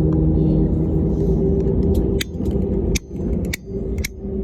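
Airbus A320neo's engines heard from inside the cabin: a steady low rumble with a hum. After about two seconds the rumble drops and several sharp clicks follow, about half a second apart.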